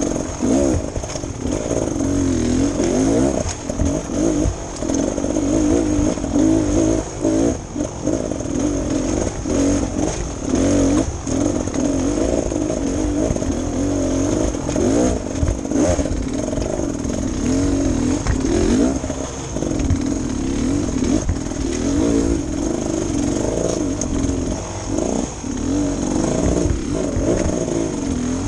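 Beta Xtrainer 300's two-stroke single-cylinder engine revving up and down as the bike climbs a rocky trail, the throttle opened and closed in short bursts, with knocks and clatter from the bike working over the rocks.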